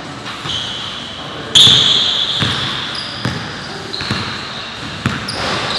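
Basketball pickup game on a gym court: the ball bouncing and sneakers squeaking, several high squeaks, the loudest about a second and a half in.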